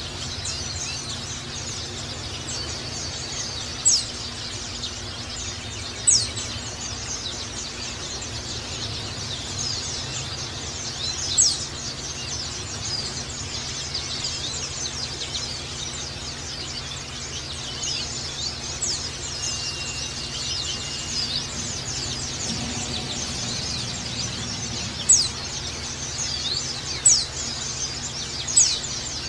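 White-eyes (pleci) twittering: a dense, continuous high chatter of tiny notes, with about six louder, sharp downslurred chirps, three in the first half and three near the end. A steady low hum runs underneath.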